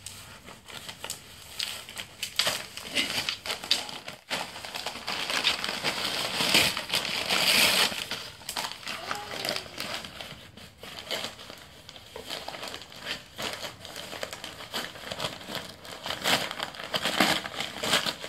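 Labrador tearing and crumpling paper gift wrapping with its mouth and paws: paper crinkling and crackling in irregular bursts.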